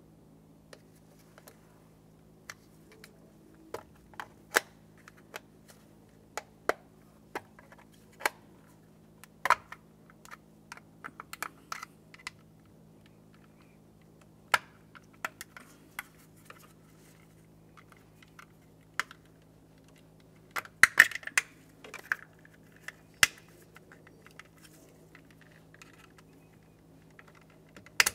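Small pocket screwdriver prying at the plastic housing of an airbag clock spring and its wiring-harness connector: scattered sharp plastic clicks and taps, with a louder cluster of clicks about 21 seconds in. A faint steady low hum runs underneath.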